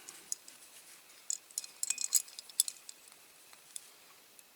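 Light, irregular metallic clicks and clinks from handling a small die-cast toy car while fitting its wheels and tyres, busiest in a quick cluster around the middle.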